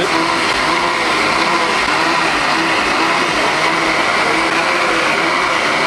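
Countertop electric blender running steadily at high speed, blending banana and fruit into a smoothie.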